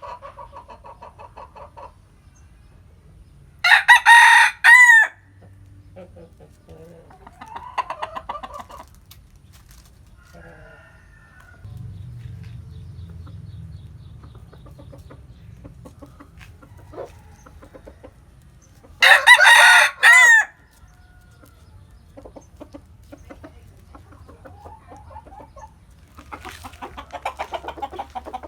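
Bantam rooster crowing loudly twice, about fifteen seconds apart, each crow short and broken into a few notes, with fainter crowing and clucking from other chickens in between.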